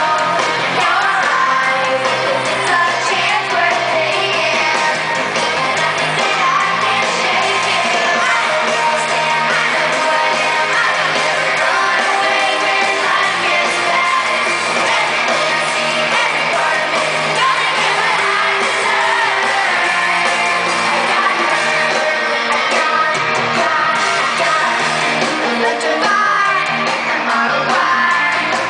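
Live pop-rock song with a female lead singer and backing band, played through an arena PA and recorded from the upper seats.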